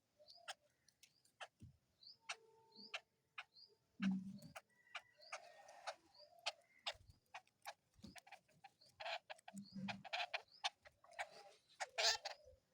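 Birds pecking at food, giving many quick irregular taps, with short high chirps mixed in.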